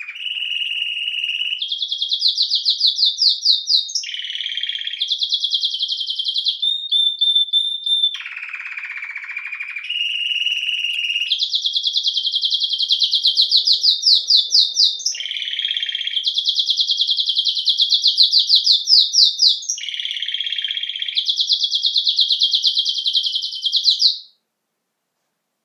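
Domestic canary (canário-belga) singing a long, unbroken song of rapid trills, switching between high and lower-pitched phrases every second or two. The song cuts off abruptly near the end.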